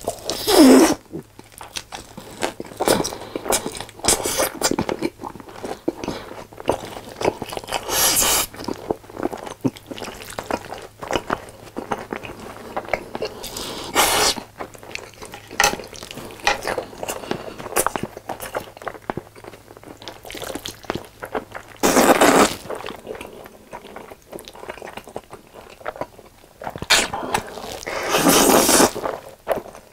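Close-miked eating sounds: wet chewing and crunching of sauced fried chicken, with constant sticky mouth clicks. Several louder noisy stretches break through, the longest a big slurp of black bean noodles near the end.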